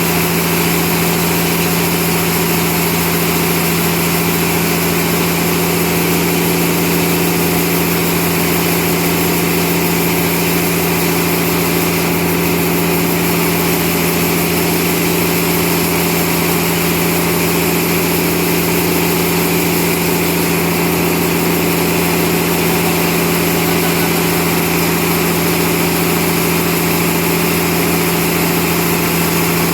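Sawmill machinery running at a constant, unchanging engine hum with a steady pitch.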